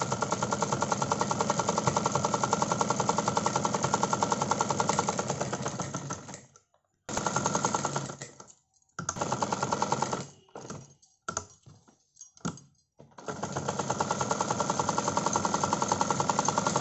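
Domestic sewing machine stitching a seam with a rapid, even clatter. It runs for about six seconds, then goes in short bursts with stops and a few clicks in between, and runs steadily again near the end.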